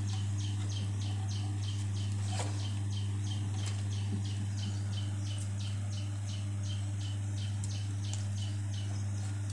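Electric stand fan running with a steady low motor hum. Over it comes a fast, even high-pitched chirping of about four pulses a second, stopping near the end.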